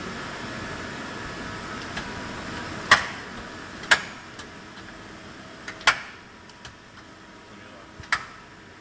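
Hyundai Kia HiT-15S CNC lathe running with a steady hum, broken by several sharp metallic clacks, the loudest about three, four and six seconds in; the hum drops after about six seconds.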